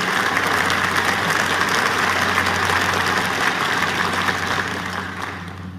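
Large audience applauding, the clapping dense and steady, then dying away over the last second.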